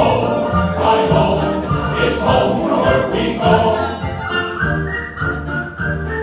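Ride soundtrack music with a choir of voices singing a melody.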